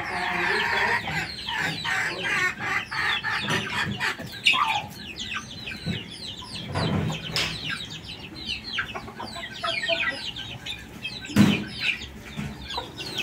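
Chickens clucking, many short calls overlapping one another throughout, with a single thump near the end.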